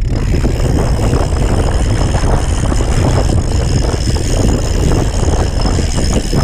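Strong wind buffeting a camera microphone on a kayak at sea: a loud, steady low rumble with hiss above it and a thin, steady high tone running through it.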